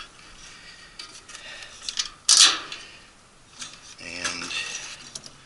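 Light metallic clinks and rattles of a wall furnace's sheet-metal and burner parts being handled and unbolted, with one louder, brief metal clatter about two and a half seconds in.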